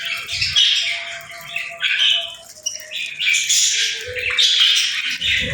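Pet budgerigars chirping: a dense run of quick, overlapping high calls with a short lull near the middle.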